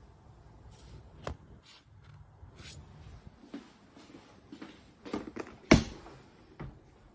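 Scattered clicks and knocks of objects being handled, with one sharp, louder knock a little under six seconds in.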